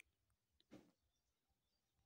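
Near silence, with a sharp click at the start and a brief soft rustle of bedding about three quarters of a second in, from a tabby cat bunny-kicking on a duvet.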